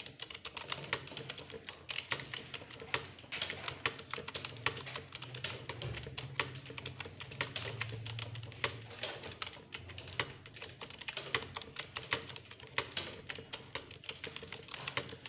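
Computer keyboard being typed on fast and without pause, a dense run of key clicks several per second, as in a typing speed test.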